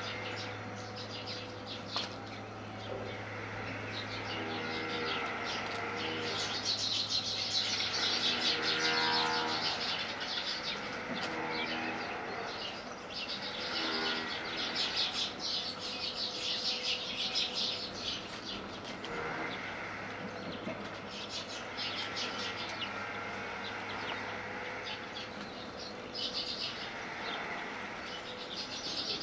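House sparrows splashing and fluttering their wings as they bathe in a shallow dish of water, with busy chirping, loudest about a third of the way in.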